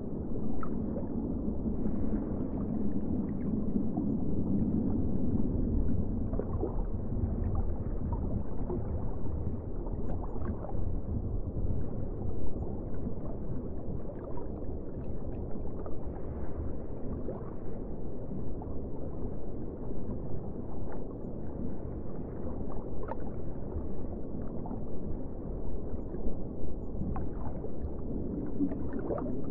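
Muffled underwater ambience: a steady low rumble of water with scattered small pops and clicks.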